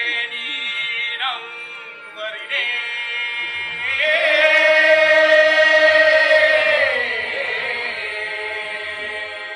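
Solo singing with sliding, ornamented notes over a steady sustained drone. A long held note starting about four seconds in is the loudest part, and it falls away just after seven seconds.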